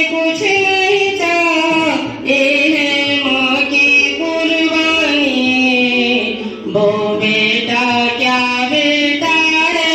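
A person singing long, drawn-out notes that slide between pitches, with brief breaks for breath about two seconds in and near seven seconds.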